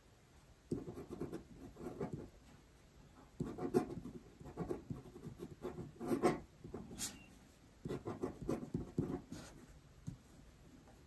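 Pen tip scratching across paper as Chinese characters are written stroke by stroke, in three bursts of quick short strokes with brief pauses between them.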